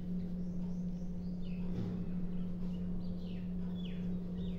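Several short, faint bird chirps, each sweeping downward in pitch, over a steady low hum.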